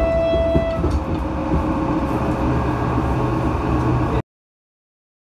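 A train horn sounds one steady note that ends about a second in, over the rumble and rattle of the moving train. The sound cuts off suddenly about four seconds in.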